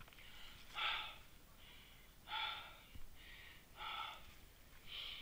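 A hiker breathing hard from the exertion of climbing a steep slope: about five heavy, gasping breaths in a steady rhythm, roughly one a second.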